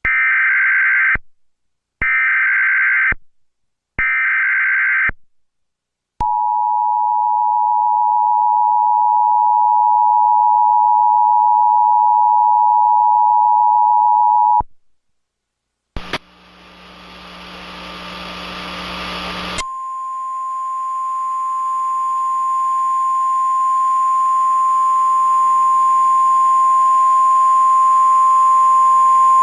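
Emergency Alert System broadcast tones. First come three short bursts of the digital header code, each about a second long. Then the two-tone attention signal is held for about eight seconds. After a short break there is static, then a single steady alarm tone over hiss that grows louder, the NOAA Weather Radio warning tone, ahead of a tornado warning.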